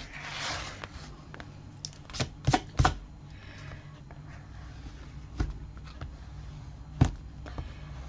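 Bone folder rubbed over freshly glued paper to burnish it down, a short scraping rub at the start. Then a few sharp taps and paper clicks as the tool and paper are handled: three close together two to three seconds in, and single ones later.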